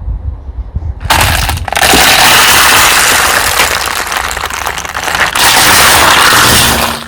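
Car tyre rolling slowly over crunchy objects and crushing them: a low rumble, then from about a second in a loud crackling and crunching that lasts about six seconds.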